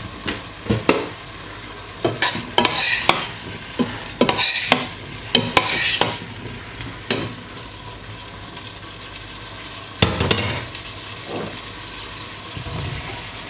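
Diced vegetables sizzling in oil in a stainless steel pot while a spoon stirs them, clacking and scraping against the pot repeatedly through the first several seconds. A single louder knock comes about ten seconds in.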